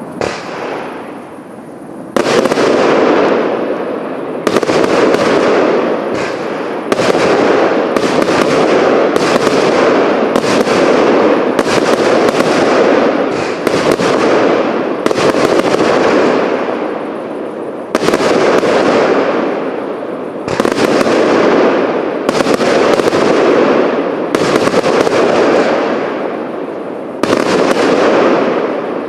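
A fireworks cake fires shot after shot in quick succession, about one to two a second: each is a sharp report followed by a fading rush. The first two seconds are quieter, before the rapid run starts.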